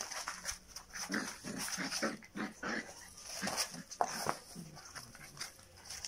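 Puppies play-fighting, making a run of short growls and whines, one after another about every half second, thinning out over the last second or so.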